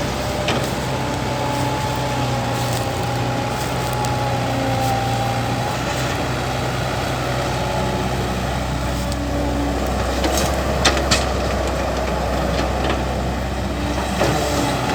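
Caterpillar E120B hydraulic excavator's diesel engine running steadily while it works, with a thin whine over the engine for the first several seconds. Two short sharp knocks about eleven seconds in.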